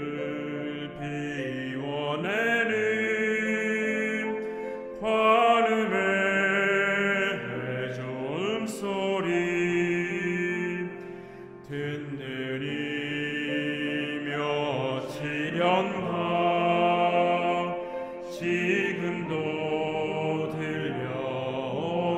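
A men's vocal ensemble singing a Korean Buddhist hymn in slow phrases of long held notes, with short breaks between phrases about five, twelve and eighteen seconds in.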